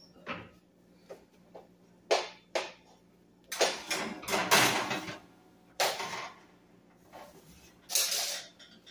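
Oven door opening, then a metal baking sheet scraping and clattering onto the oven's wire rack, and the rack sliding in. The sounds come as separate knocks, with a longer scrape in the middle and another near the end.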